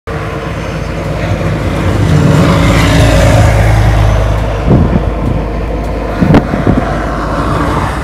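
City bus driving past on a snowy street, its engine running loud for the first four seconds or so and then fading. After that, blizzard wind blows over the microphone, with a couple of sharp thuds.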